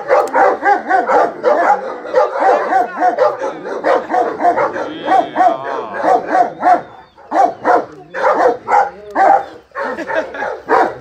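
Dogo Argentino whining and yelping over and over, a few short pitched cries a second with brief lulls about seven and nine and a half seconds in, while being mounted during mating.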